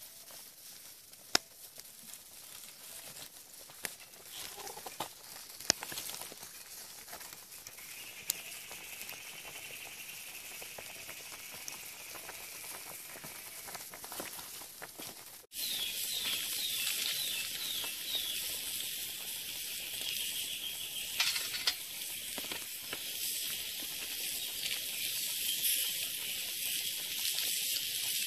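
Small wood fire hissing and crackling with sharp pops under a pot of pig's trotters boiling on a wire grill. The hiss gets louder about halfway through.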